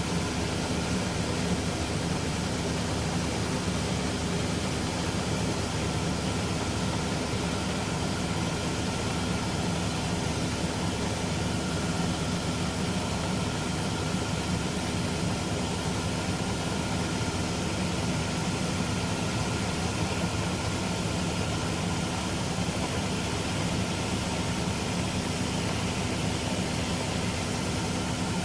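Combine harvester running steadily under harvest load: a constant low engine hum with a fixed whine above it and an even hiss from the threshing machinery, unchanging throughout.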